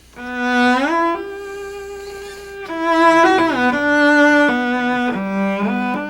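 Cello playing a slow melody with audible slides up and down between the notes. These are the old-fashioned 'beer garden' portamento slides that the old finger leaves sounding between departure and arrival.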